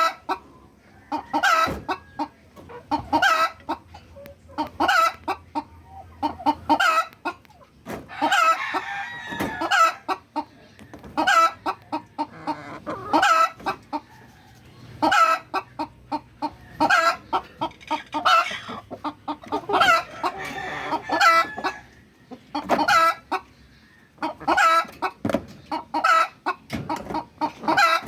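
Chicken clucking over and over in short, sharp calls, with busier, noisier stretches of calling about eight and twenty seconds in.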